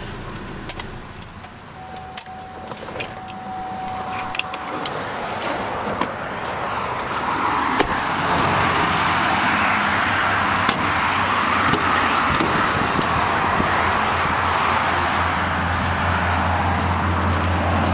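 Clicks and latch sounds from a 2005 GMC Canyon's doors as a rear door is opened. A steady tone sounds for about three seconds starting a couple of seconds in. Under it, a rush of highway traffic noise builds from about seven seconds, with a low hum growing louder near the end.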